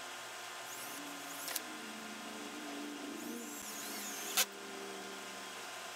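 A power drill whirring at varying speed for a few seconds, with a sharp knock about four seconds in.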